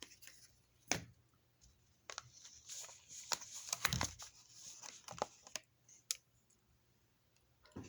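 Packaging crinkling and tearing as it is handled, with scattered sharp clicks; the rustling is bunched from about two to five and a half seconds in.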